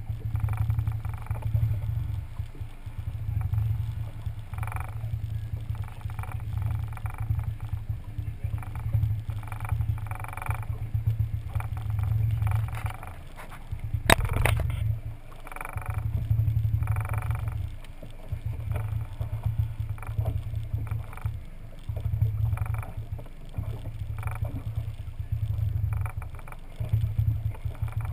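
Small skiff on the water: an uneven low rumble that swells and fades every second or two, with faint muffled voices now and then and one sharp click about fourteen seconds in.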